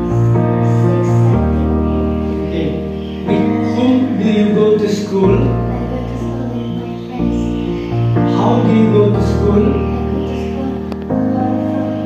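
Background music: held chords over a bass line, changing about every two seconds.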